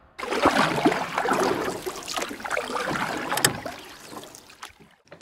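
Water sound effect, rushing and gurgling, starting suddenly and fading out over about four seconds.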